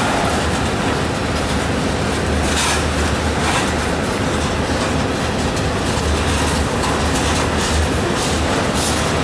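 Covered hopper cars of a slow BNSF grain train rolling by: a steady rumble of steel wheels on rail, with a few sharp clicks as wheel sets cross rail joints.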